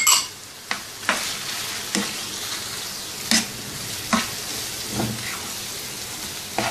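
Chicken cubes frying in oil in a non-stick pan, sizzling steadily, while a spatula stirs ground spices through them. The spatula scrapes and knocks against the pan about once a second.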